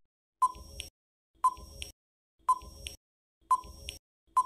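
Quiz countdown-timer sound effect ticking once a second, five times, each tick a sharp click with a brief ringing note and a softer second click just after.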